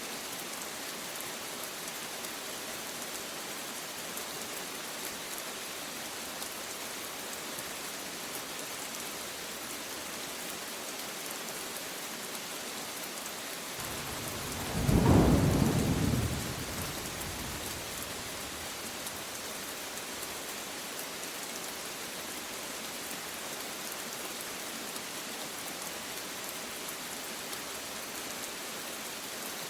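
Steady rain falling throughout. A single rumble of thunder comes about halfway through: it swells quickly, is the loudest sound, and fades back under the rain within about three seconds.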